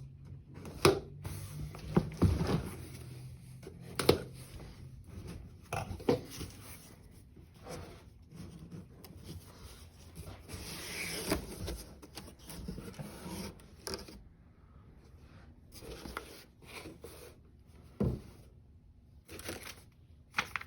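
Cardboard guitar shipping box being opened and unpacked: scraping and rubbing of cardboard and packing material, broken by several sharp knocks.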